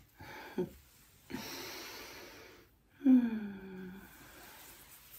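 A woman's wordless voice sounds. There is a short falling 'mm', then a long breath out, then a louder drawn-out sigh that falls in pitch, the loudest sound here.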